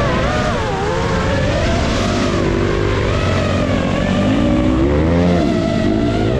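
Motors revving at a motocross race, a high whine swinging unevenly up and down in pitch over a lower, steadier engine note.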